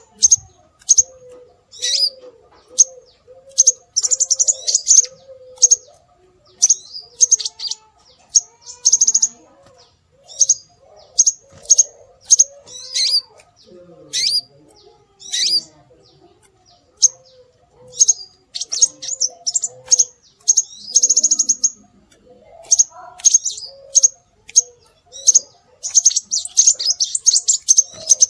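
Scarlet minivet (sepah raja) calls played as a bird lure: rapid high chirps and short trills in repeated bursts, over a fainter, lower warbling note that repeats steadily.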